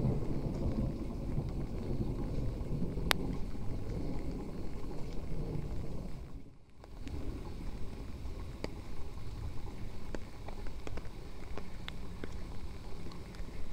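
Outdoor ambience on a rainy walk: a steady low rumble with scattered faint ticks, one sharper tick about three seconds in, and the sound dropping out briefly a little past halfway.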